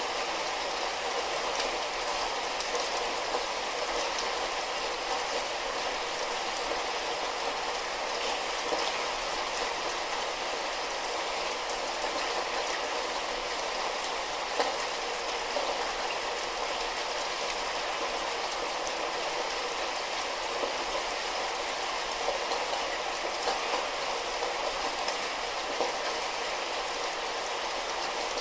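Steady light rain: an even hiss of falling rain with scattered sharper drop ticks.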